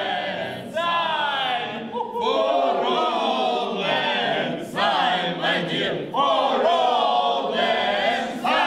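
A group of people's voices in chorus, loud, in short phrases of one to two seconds with brief gaps between them.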